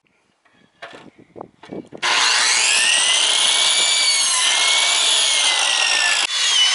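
Electric compound miter saw cutting a wooden board: a few light knocks as the board is set in place, then about two seconds in the saw starts up and runs through the cut with a loud, high whine.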